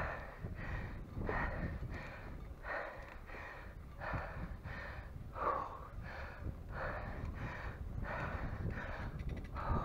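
A cyclist breathing hard and rhythmically under heavy exertion, in and out about every second and a half, over a low rumble.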